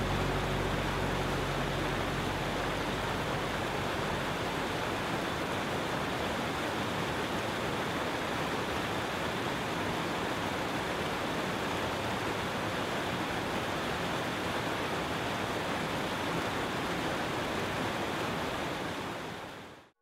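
Steady rushing water, an even hiss of noise that cuts off suddenly near the end. A faint low hum fades away in the first few seconds.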